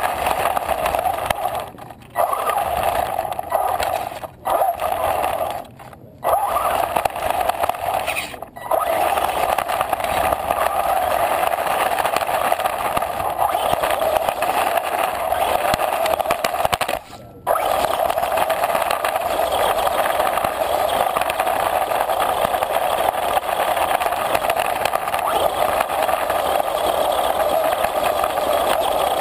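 RC car's motor and drivetrain running hard with its tyres rolling over rough pavement, heard from a camera riding on the car; the drive cuts out briefly about five times, mostly in the first nine seconds, as the throttle is let off.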